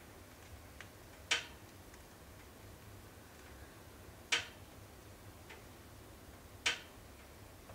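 Logs burning in a closed wood stove, crackling: three sharp pops two to three seconds apart, with a few fainter ticks between them, over a faint steady hiss.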